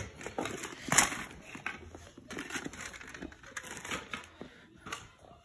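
Plastic toy track pieces and packaging being handled: crinkling and rustling with irregular clicks and knocks, the sharpest knock about a second in.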